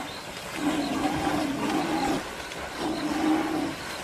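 An animal's two drawn-out, wavering calls, the first starting about half a second in and lasting over a second, the second shorter one near the end.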